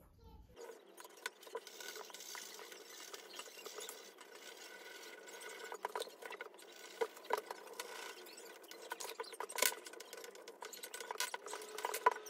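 Crayons rubbing on paper, sped up, with scattered small clicks and taps as crayons are taken from the box and set down on the wooden table.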